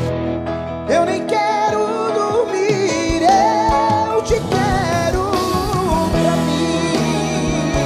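Live sertanejo band playing an instrumental stretch of a song, a lead melody wavering with vibrato over steady band backing.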